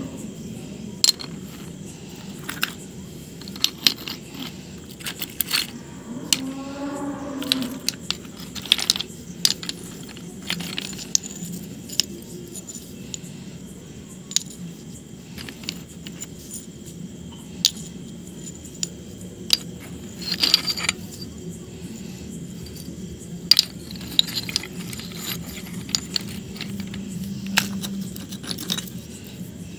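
Pieces of hard white stone clicking and knocking against each other as they are handled: an irregular run of sharp clicks.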